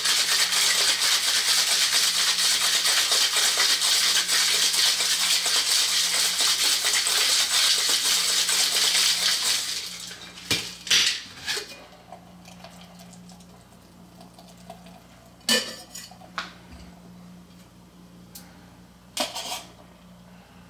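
Ice rattling hard inside a metal cocktail shaker as a daiquiri is shaken for about ten seconds, then stopping. A few sharp metal clinks and knocks follow as the shaker is handled.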